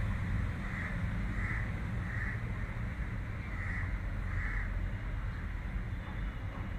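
Crow cawing, about five short caws in two bunches, over a steady low background hum.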